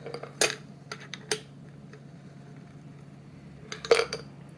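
Cocktail shaker and glassware clinking in a few sharp knocks, about half a second in, twice around one second, and the loudest near the end, as the last egg-white froth is shaken out into the glass.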